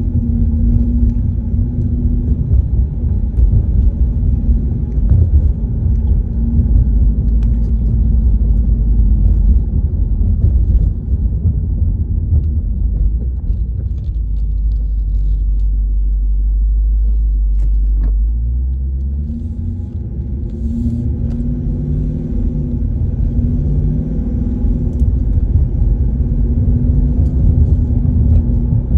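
Car engine and road rumble heard from inside the cabin, low and steady throughout. After a steadier stretch in the middle and a click about two thirds of the way in, the engine note climbs several times as the accelerator is pressed.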